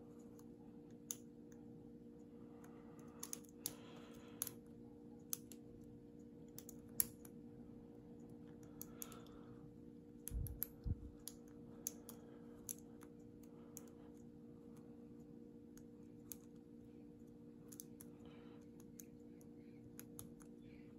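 Lock pick and tension wrench working inside a Lockwood padlock: scattered faint metallic clicks and ticks as the pins are raked and set, with a couple of low bumps about ten seconds in, over a steady low hum.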